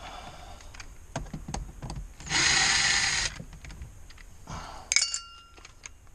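Clicks and knocks of trim being handled, then about a second of a power drill or driver running, likely backing out a console screw. About five seconds in there is a sharp metallic clink with a short ringing tail.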